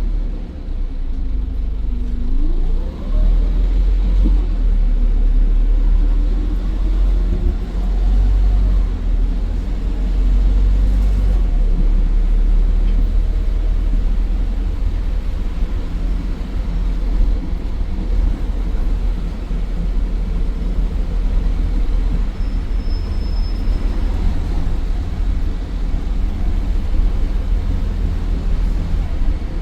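An Optare Versa bus's Mercedes-Benz OM934 5.1-litre four-cylinder diesel runs under way through an Allison 2100 automatic gearbox. It makes a steady heavy low rumble, with the engine pitch climbing as it pulls away about two seconds in. A short high beep comes about three-quarters of the way through.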